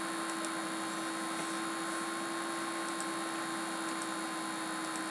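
Steady background hiss with a constant electrical hum from a desk microphone recording, broken by a few faint clicks.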